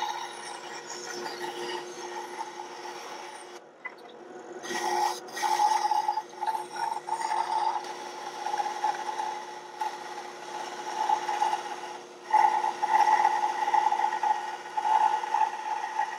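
Ryobi BS904G 9-inch band saw running, its blade cutting through a block of 2x4. Under the steady hum of the saw, a rasping cutting noise swells and fades as the wood is fed in. It briefly drops away twice and is loudest in the last third.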